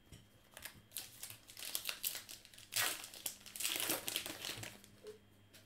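Baseball card pack wrapper being torn open and crinkled by hand, in an irregular run of crackles that is loudest near the middle and again about four seconds in.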